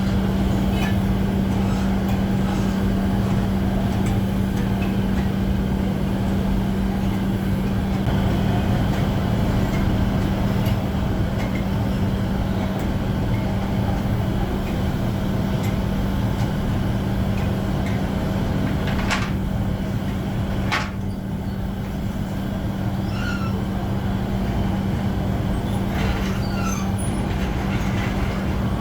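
A machine running steadily, a constant low hum over a dense rattling noise, with two sharp clicks about two-thirds of the way through.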